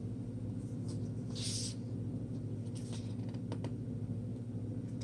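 A steady low hum with a short papery rustle about a second and a half in, as a picture-book page is turned, and a few faint handling clicks.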